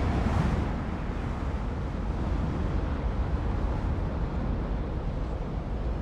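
Tornado wind: a steady, low rumbling rush of wind with buffeting on the microphone. It is loudest at the start and eases slightly after about a second.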